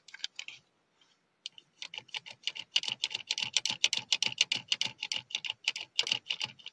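Plastic clicking of a Groot Happy Meal toy's push-button action mechanism as it is worked: a few scattered clicks, then a quick, even run of clicks, several a second, from about two seconds in.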